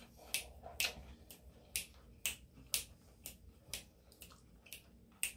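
Close-up chewing of a fresh spring roll: wet mouth clicks and smacks about twice a second, in a steady chewing rhythm.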